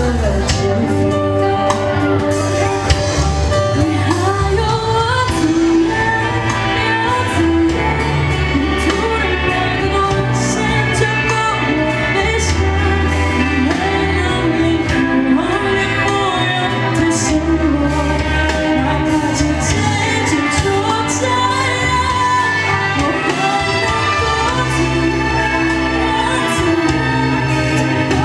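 A woman sings a Chinese song into a handheld microphone over backing music with steady bass notes, amplified through the hall's speakers.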